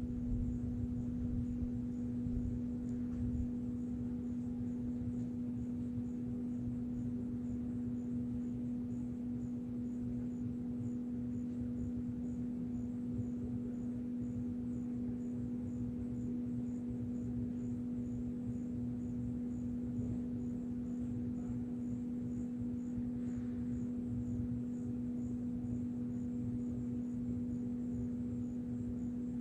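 A steady, low hum holding one pitch without a break, over a low rumble, with a faint, even ticking high above it.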